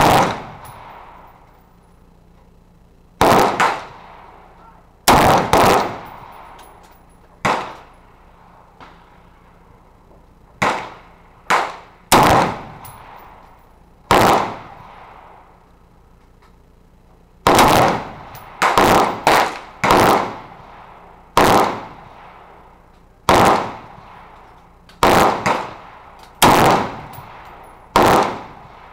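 Smith & Wesson M&P15 Sport AR-15 rifle firing 5.56 mm rounds semi-automatically: about two dozen loud single shots at irregular intervals, sometimes two or three in quick succession, each with a short ringing echo.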